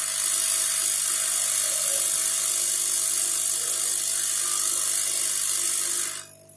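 Hot-air rework gun blowing on a motherboard, a steady airy hiss that stops abruptly about six seconds in.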